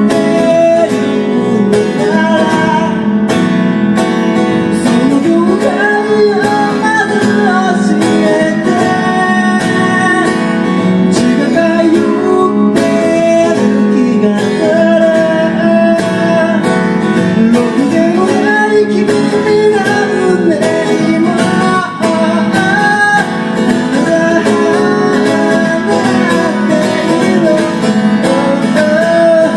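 Live music: a guitar strummed and picked, with a voice singing a gliding melody over it.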